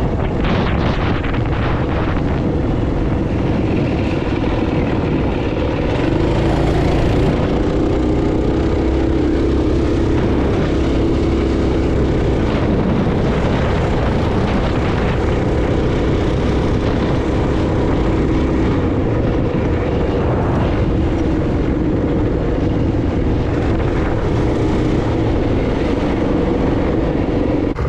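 Small motorcycle engine running on the move, heard from the rider's seat with heavy wind noise on the microphone; the bike slows down over the stretch.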